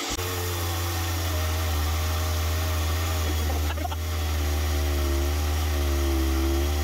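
Air compressor running steadily, a low hum with a slightly wavering whine above it, pumping air into a well system's pressure tank (hydrophore) to charge its air cushion toward about 4 bar.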